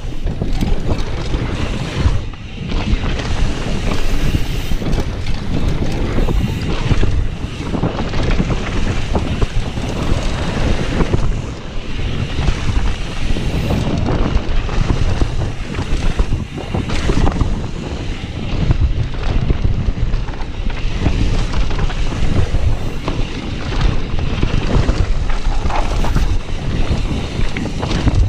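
Wind buffeting the microphone over the rumble of mountain bike tyres rolling fast down a dirt trail, with the bike rattling and knocking over bumps and roots.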